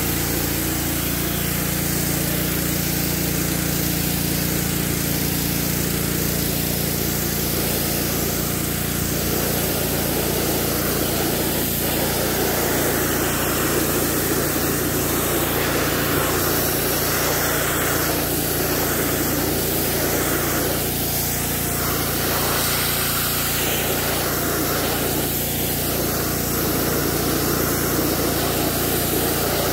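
Gas-engine pressure washer running steadily, with the hiss of its spray jet. From about nine seconds in, the jet hitting the truck grille and concrete comes and goes as the wand sweeps.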